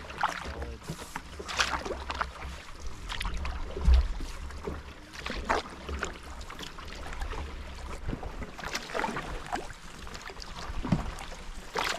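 Canoe paddle strokes in calm water: splashes and drips as the blade goes in and comes out every second or two. Under them is a low rumble of wind on the microphone, with a dull thump about four seconds in.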